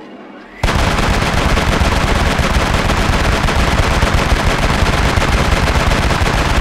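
A loud, dense rapid-fire crackle that starts abruptly about half a second in, runs steadily and cuts off suddenly at the end.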